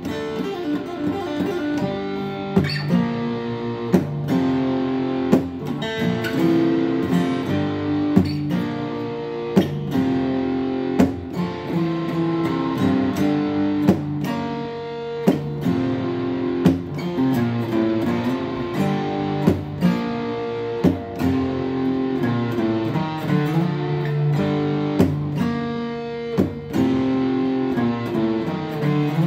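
Acoustic guitar played solo, chords ringing and changing, with a sharp accented strike on the strings about every second and a half.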